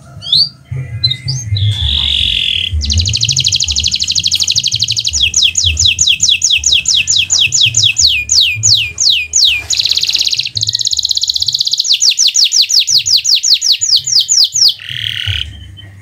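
Domestic canary singing: long, very fast trills alternate with runs of falling whistled notes that slow down as they go, and the song ends in a short buzzy note near the end.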